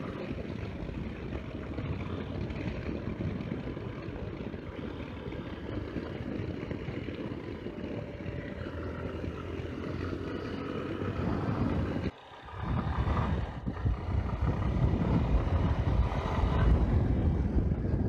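Single-cylinder engine of a Yamaha XTZ Ténéré 250 motorcycle running steadily while riding, with wind rushing over the helmet-mounted microphone. About twelve seconds in, the sound cuts out for a moment and returns louder, with more low rumble.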